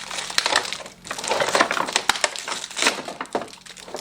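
Plastic packaging crinkling and crackling as it is handled and pulled about, with many small sharp crackles.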